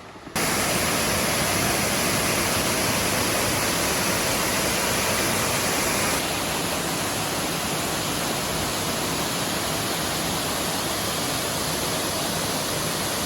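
El Limón waterfall's steady rushing of falling water, starting abruptly just after the start and dropping slightly in level about six seconds in.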